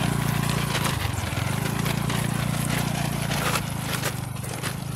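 TVS Jupiter scooter's single-cylinder engine running under throttle as it is ridden slowly over loose stones, with stones clacking and crunching under the tyres. The engine note drops briefly about a second in, then picks up again.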